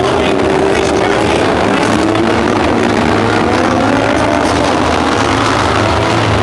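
Several autograss special racing cars' engines revving hard as they race, their pitch rising and falling with the throttle.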